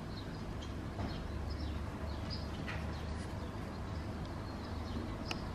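Small birds chirping faintly in a nature video played through a television's speakers, over a steady low hum, with one brief click near the end.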